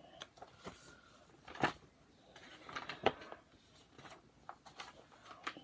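A picture book being handled and a page turned: scattered soft taps and paper rustles, with the sharpest taps about a second and a half and three seconds in.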